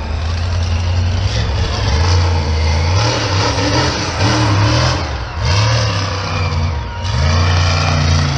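Monster truck engine running hard and revving, the revs dropping briefly about five seconds in and again about seven seconds in before climbing again.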